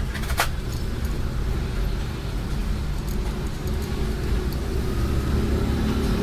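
Steady low background rumble, with one sharp click about half a second in and a few fainter ticks from parts being handled on the bench.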